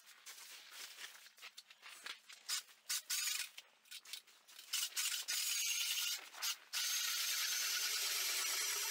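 A cordless drill turning an ice auger falls quiet, leaving a few seconds of scattered knocks and scrapes from the auger and ice being handled. About seven seconds in the drill starts again and the auger cuts steadily into the ice.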